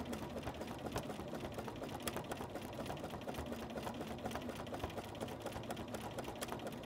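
Sewing machine running steadily at a fast, even stitching rhythm, sewing a narrow zigzag satin stitch as the quilt is moved freely under the needle.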